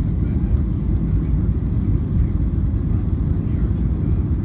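Steady low rumble of a jet airliner's engines and rushing air, heard from inside the passenger cabin on final approach with the wing flaps extended.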